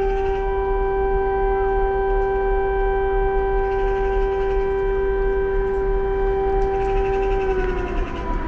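Civil-defence air-raid siren sounding across the city, holding a steady wailing pitch with a second, higher tone alongside it. Near the end the main tone starts to fall as the siren winds down.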